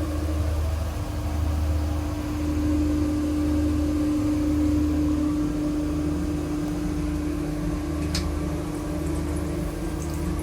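Inside a moving diesel multiple-unit passenger coach: a steady low rumble with a gentle pulse and a steady hum over it, and one sharp click about eight seconds in.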